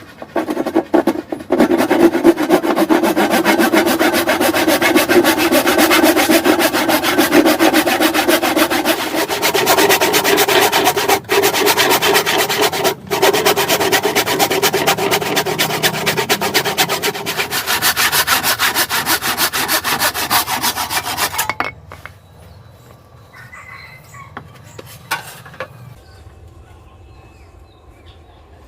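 Hasston 18-inch rip hand saw cutting through wood in fast, steady strokes, with two very short breaks partway through. The sawing stops about three quarters of the way in, leaving only a few faint knocks.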